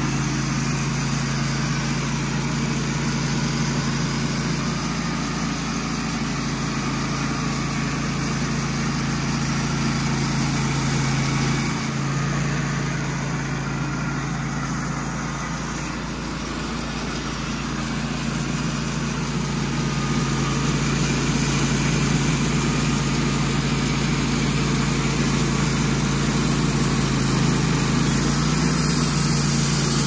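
Wood-Mizer LT15 Wide portable bandsaw mill running steadily, its band blade sawing through a cypress log. The drone shifts briefly about 12 seconds in and is a little louder from about 20 seconds on.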